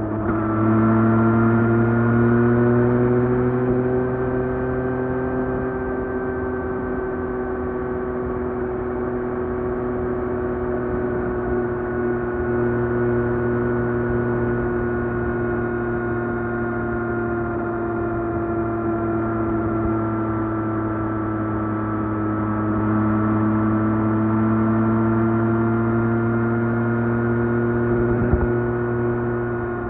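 Yamaha MT-09's three-cylinder engine through its stock exhaust, running at fairly steady revs. The pitch rises a little in the first few seconds, sags gently through the middle and rises again about three quarters of the way through. There is a single short knock near the end.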